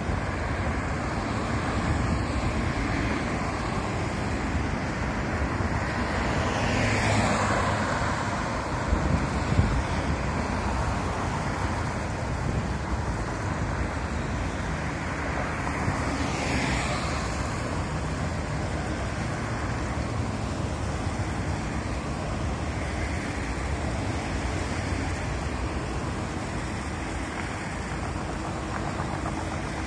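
Road traffic noise with a low rumble and wind buffeting the microphone. Two vehicles pass close by, one about a quarter of the way in and one just past halfway, each swelling and fading.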